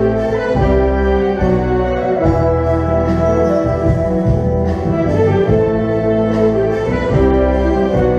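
Concert wind band playing: clarinets and brass hold sustained chords over low bass notes that change about once a second.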